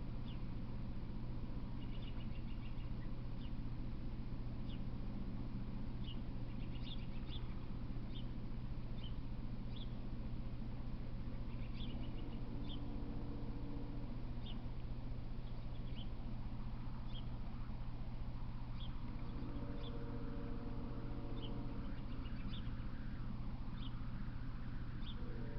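Short, high chirps of small birds repeating every second or so over a steady low hum, with a lower pitched call coming and going in the second half.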